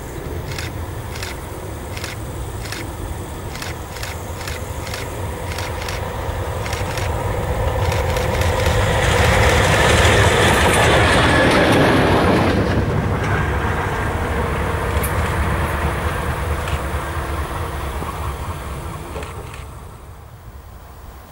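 Diesel shunting locomotive of the DB V 60 type passing by on the track. Its engine rumble and wheel-on-rail noise swell to a peak about ten seconds in, then fade away. A run of sharp clicks is heard in the first few seconds as it approaches.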